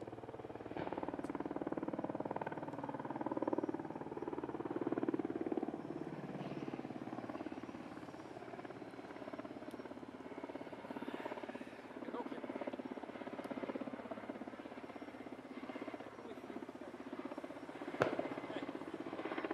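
Kamov Ka-52 attack helicopter flying past, its coaxial rotors giving a steady, fast rotor chop that is louder in the first few seconds. Near the end there is one sharp click.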